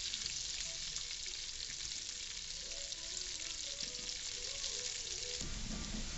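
Onion rings frying in bacon grease and a melting pat of butter in a frying pan: a steady sizzle with fine crackling. The sound changes abruptly, with more low rumble, near the end.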